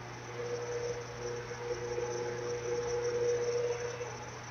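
Steady low hum and hiss, with a faint steady humming tone that sets in about half a second in and fades out near the end.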